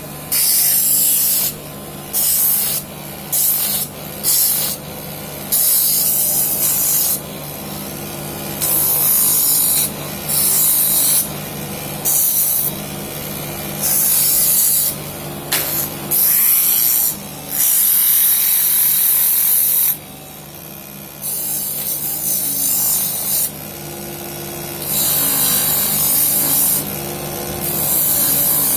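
Homemade mini lathe's 12-volt DC motor running steadily while a spinning wooden piece is sanded: sandpaper pressed on and off in repeated strokes of a second or two, each a loud hiss over the motor's hum.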